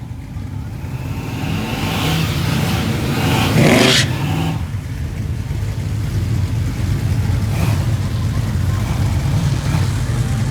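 Car engines running with a low rumble. Partway through, a rising surge of engine and rushing noise builds to a peak about four seconds in and then drops off abruptly, like a car revving up or accelerating past.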